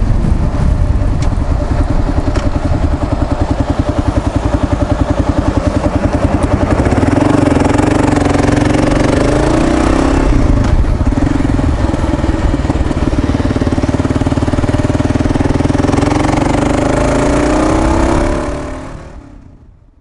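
Kawasaki KLR650's single-cylinder four-stroke engine running under way through its aftermarket Lexx exhaust. The engine note climbs about seven seconds in as the bike pulls away, and rises again near the end before the sound fades out.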